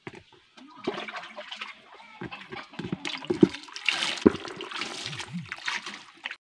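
Water sloshing and splashing in a basin holding freshly caught small fish and snails, with little knocks and splatters, stopping abruptly near the end.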